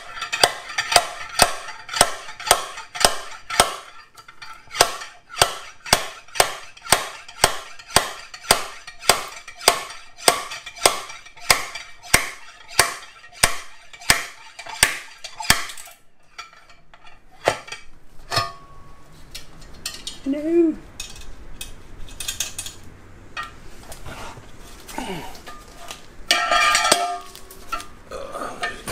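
Neiko slide hammer puller pulling a blind-hole bearing from an NP242 transfer case's aluminium housing: the sliding weight strikes its stop again and again, a sharp ringing metallic clank about twice a second, as the bearing is worked loose. The hammering stops a little past halfway, leaving a few scattered knocks and a louder metal clatter near the end.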